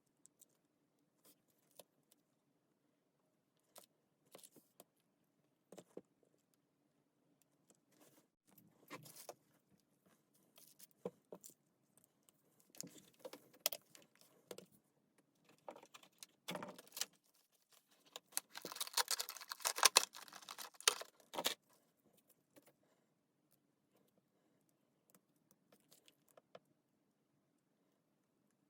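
Clicks and rattles of small metal parts being handled, sparse at first and then busiest in a jangling flurry about two-thirds of the way through, over a faint steady low hum.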